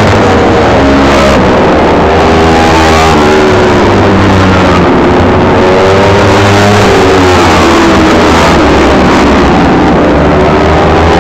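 Several Kawasaki Ninja 250 four-stroke race motorcycles revving hard through a corner, passing one after another. Their overlapping engine notes rise and fall as they brake into the bend and accelerate out.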